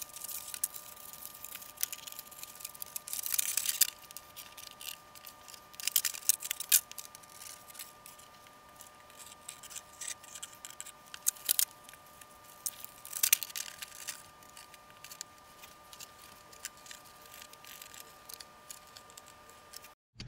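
Light handling noises of a thin plastic canopy and cockpit tub being fitted together and glued: scattered small clicks, taps and brief rustles. A faint steady high whine runs underneath and cuts off near the end.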